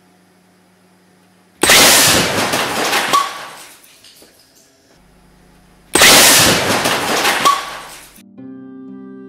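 Air cannon firing a concrete projectile into a microwave oven: a sudden loud blast and crash of breaking metal and glass that clatters away over about two seconds, with a second sharp bang partway through. The same shot is heard again about four seconds later, each time after a faint steady hum. Music starts near the end.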